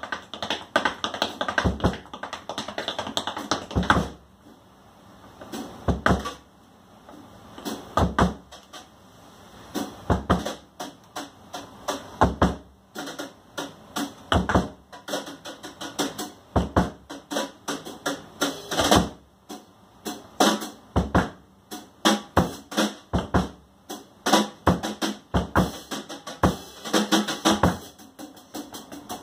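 Tap shoes striking the stage in quick rhythmic runs of sharp clicks, played against drums, with a deep thump roughly every two seconds and brief lulls between phrases early on.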